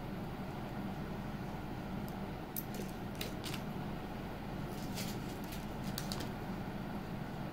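Metal jewellery pieces clinking lightly as they are handled: a few short jingles about two and a half seconds in and another cluster around five to six seconds, over a steady low hum.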